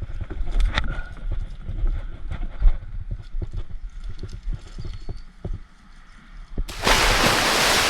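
Irregular footsteps knocking on the pier. Near the end a sudden loud rush of noise sets in.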